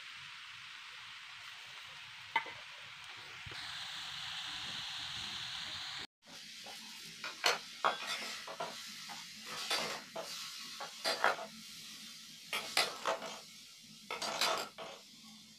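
Radish fry sizzling in a steel kadai while a spatula stirs it. After a cut about six seconds in, the spatula scrapes and clinks against the steel kadai and a steel bowl as the fry is served out.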